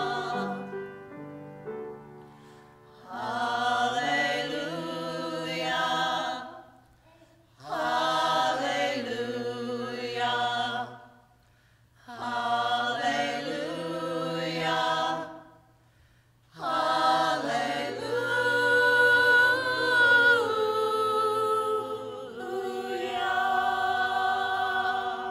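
Small mixed choir of men and women singing together, in phrases of a few seconds with brief pauses between them.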